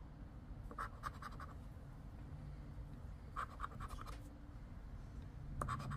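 Scratch-off lottery ticket being scratched with the edge of a casino chip: short bursts of quick scraping strokes about a second in, again around three and a half seconds, and near the end.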